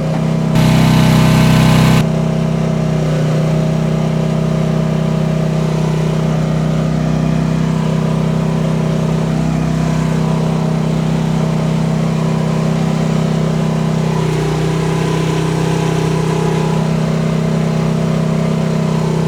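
Rippa R10 gas mini excavator's engine running steadily under hydraulic load while it holds and drives with a 550-pound lifted weight. A louder, harsher stretch lasts about a second and a half just after the start.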